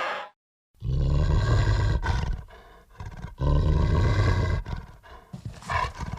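Werewolf creature sound effect: two deep, rumbling growl-roars, each about a second and a half long with a pause between, then shorter snarls near the end.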